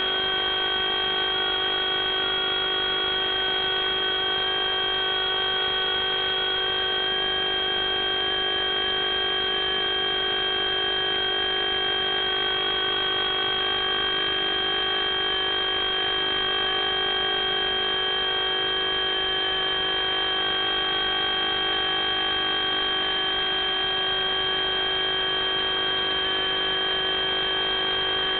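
FPV quadcopter's brushless motors and propellers whining steadily, a high multi-toned whine whose pitch drifts only slightly.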